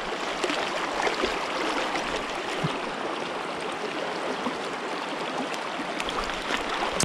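Shallow mountain stream running over a cobble bed: a steady rush of moving water.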